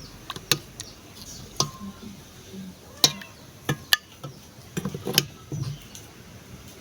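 A dozen or so sharp clicks and light knocks at irregular intervals, with a small cluster of them about five seconds in.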